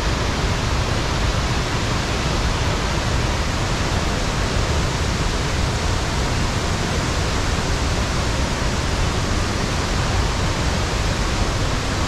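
Steady, even rush of water from the Iguazu Falls cascades, a dense unbroken noise heavy in the lows.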